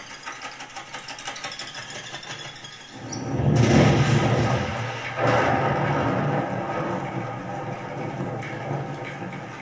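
Film or demo soundtrack played through the Epson EF-12 laser projector's built-in speakers. A quieter passage gives way about three seconds in to a sudden loud swell of deep, rumbling effects, with a second surge just after five seconds.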